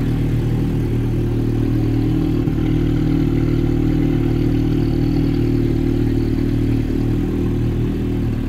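Audi TTS's turbocharged 2.0 TFSI four-cylinder engine, fitted with a Milltek sports catalytic converter, idling steadily while still cold after a cold start.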